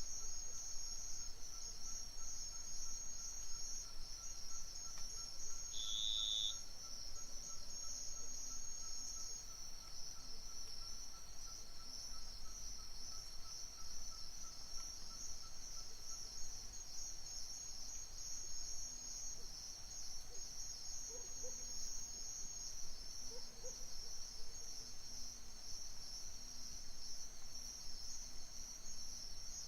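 Chorus of many crickets chirping steadily at night, a dense high-pitched pulsing trill, with one brief separate chirp about six seconds in.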